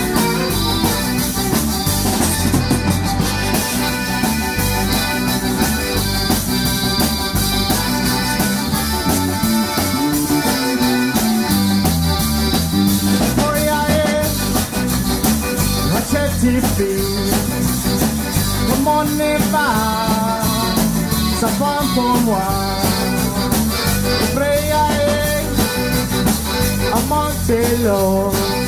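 A live zydeco band playing an up-tempo number: button accordion, washboard, electric guitar, bass and drum kit keep a steady beat, with a wavering melody line coming to the fore about halfway through.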